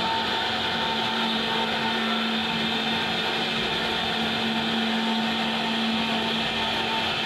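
CNC router spindle running steadily as it carves an HDMR door panel, a constant high motor whine over the hiss of cutting.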